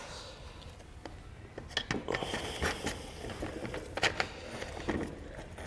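Handling clicks and light scraping as a Rhino-Rack SX roof-rack foot is worked into the channel of a Vortex Aero crossbar by hand, with a few sharp clicks about two, four and five seconds in.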